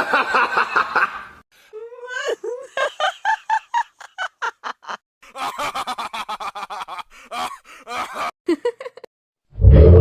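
Cartoon character laugh sound effects played one after another, each a different voice: bursts of snickering and rapid pulsed 'ha-ha' laughter with short gaps between them. Near the end a louder, deeper sound begins.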